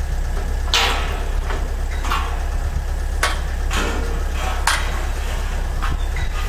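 Construction-site noise: a steady low rumble with about six sharp knocks at uneven intervals.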